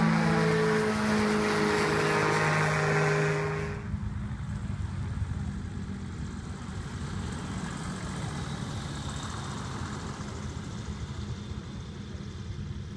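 Propeller-driven ultralight aircraft's engine droning overhead with a steady note. About four seconds in it cuts to a quieter, more distant engine hum from a weight-shift ultralight trike on the airstrip.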